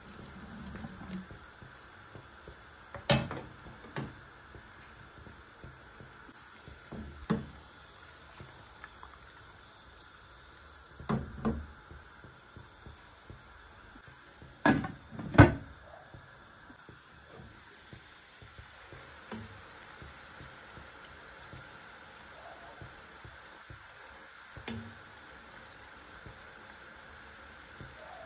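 Pot of sugar syrup boiling on a gas stove with paneer balls in it, a faint steady bubbling hiss. About eight sharp knocks of metal utensils against the pot stand out, the loudest two close together around the middle.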